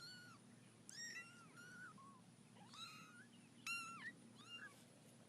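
Cat mewing: a run of about eight short, high-pitched mews, each rising and then falling in pitch, faint and spaced irregularly.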